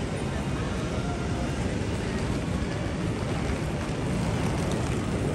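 Busy city street ambience: a steady low rumble of traffic.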